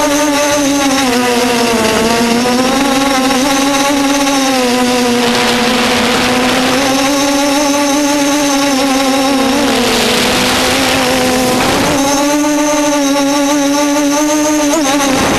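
Electric motors and propellers of the Mamba RC aircraft running in flight: a steady buzzing hum that wavers slightly in pitch. Wind rushes over the aircraft twice, about five and ten seconds in.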